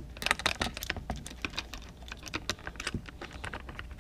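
Rapid, irregular light clicks and taps of small metal bike parts, the seat clamp bolts and hardware, being handled and fitted.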